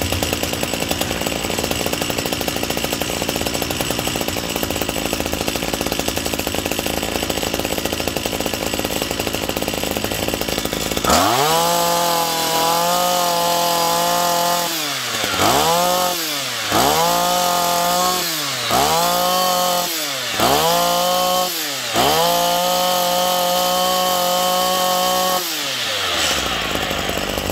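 Komatsu Zenoah TRZ 260ez brush cutter's 26cc two-stroke engine running at idle, then revved: about eleven seconds in the revs climb, drop and climb again in five quick throttle blips. They are held high for a few seconds and let back down to idle near the end.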